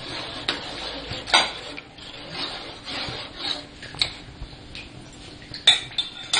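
Spoon stirring curry in a cooking pot, scraping and knocking against the pot, with a few sharper knocks about a second in and near the end.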